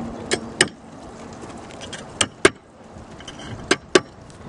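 Hammer blows on the tile ridge: six sharp knocks in three quick pairs, about a second and a half apart.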